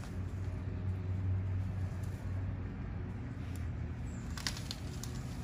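Steady low mechanical hum, like a running engine. About four and a half seconds in comes a brief rustling of leaves and plants as a puppy moves through the bushes.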